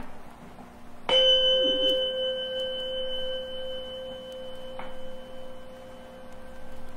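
A single struck bell, hit once about a second in, ringing on as a pure, steady note that slowly fades.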